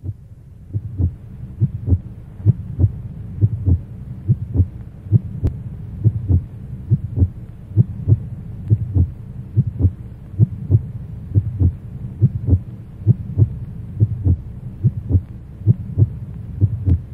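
Slow heartbeat sound: regular low double thuds, a little under one a second, over a steady low hum.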